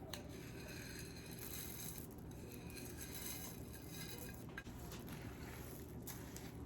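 Faint stirring of a spoon through a thick mixture of chocolate chips and marshmallows in a bowl: soft scraping with a few light clicks.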